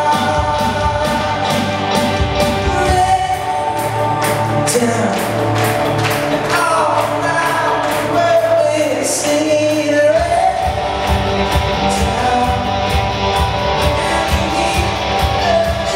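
Live band playing a song with a sung lead vocal over guitars and drums. The deepest bass drops out for a few seconds and comes back about ten seconds in.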